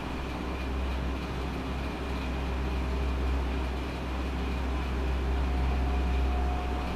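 Steady low droning background noise with no speech.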